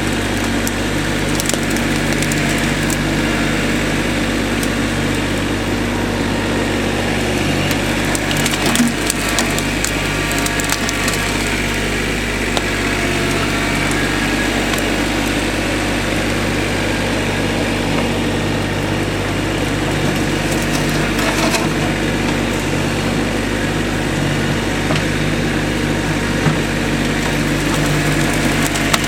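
An engine running steadily under scattered cracking and splintering of wood, with clusters of sharper cracks about nine seconds in and again about twenty-one seconds in.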